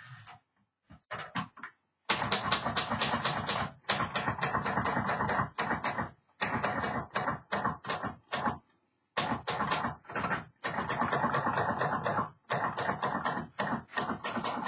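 1958 Royal Futura manual typewriter being typed on: a few scattered key strikes, then fast runs of clacking keystrokes a second or two long with short pauses between them.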